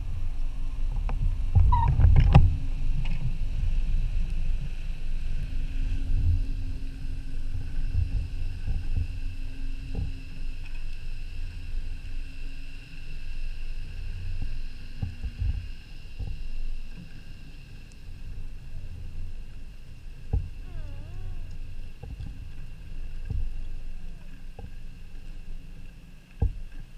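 Underwater ambient noise on the camera's microphone: a low rumble with scattered clicks and faint steady high tones, loudest in the first few seconds and fading gradually. About twenty seconds in there is a brief wavering whistle.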